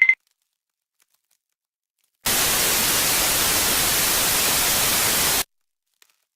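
A burst of static: an even hiss across all pitches. It cuts in about two seconds in and cuts off abruptly about three seconds later.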